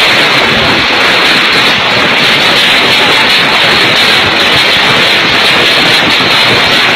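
Loud, steady noise of a hailstorm with strong wind, hail and gusts blending into one continuous wash with no single hit standing out.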